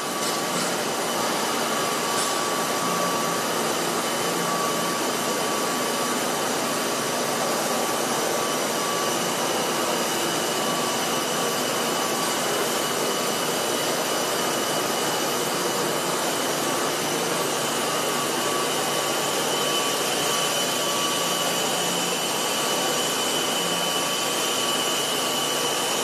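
GROB CNC machining centre running: a steady whirring hum with a constant high whine over it.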